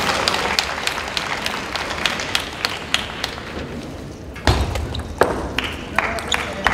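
Scattered sharp claps and taps echoing in a large sports hall, with a dull thump about four and a half seconds in.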